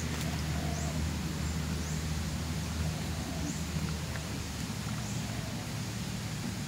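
Outdoor park ambience: a steady low hum, with faint, short, high chirps repeating every second or so.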